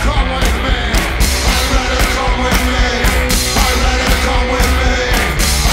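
Live rock music: electric guitar and drum kit with cymbals playing together, the drums keeping a steady beat of about two hits a second.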